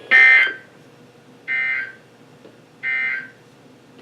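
Three short bursts of warbling digital data tones from a NOAA Weather Radio broadcast, about one and a half seconds apart, the first the loudest: the EAS/SAME end-of-message code that closes the severe thunderstorm warning.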